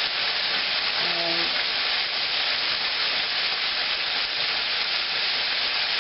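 Chicken pieces frying in hot grease in a pan: a steady sizzle.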